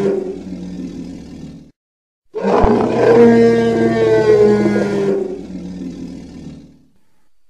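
Monster roar sound effect in the style of the Jurassic Park T. rex: a previous roar fades out, and after a brief silence a new long, deep roar begins with a low thump, then trails off over several seconds.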